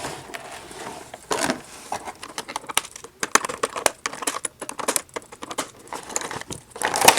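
Toy packaging being opened by hand: plastic and cardboard crinkling and tearing, with many irregular sharp clicks and snaps and a louder rustle about a second and a half in.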